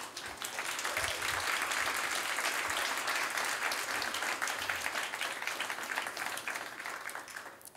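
Audience applauding, many hands clapping together; it swells within the first second, holds steady, and fades toward the end.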